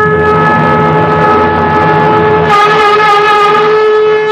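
Conch shell (shankha) blown in one long held note that wavers slightly in pitch in its second half, with a steady low tone underneath.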